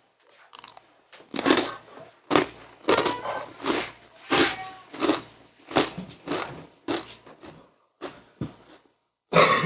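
Close-miked chewing of crunchy food, a steady run of about a dozen crisp crunches under a second apart, the loudest near the end.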